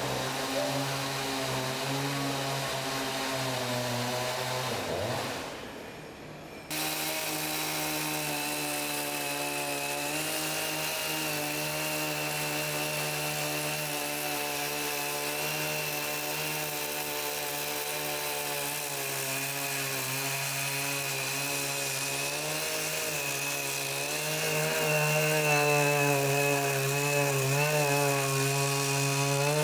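Woodworking power saw running with a steady motor tone. It drops away about five seconds in, starts again a second or so later, and grows louder with a wavering pitch over the last few seconds, as the blade works through wood.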